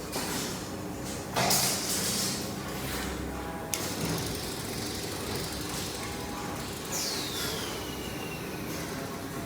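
CNC spring-forming machine's servo axis moving, with a louder burst of noise about a second and a half in and a high whine that falls in pitch around seven seconds in.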